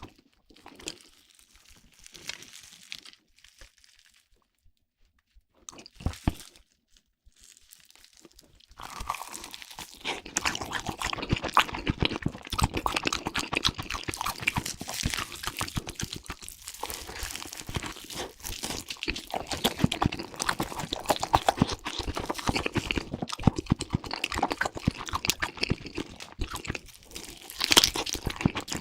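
Crunching and chewing, a rapid crackle of bites. Only a few scattered crunches at first, then dense and continuous from about nine seconds in.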